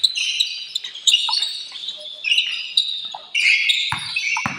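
Basketball sneakers squeaking on the court in repeated short high squeals, with the basketball bouncing a couple of times near the end.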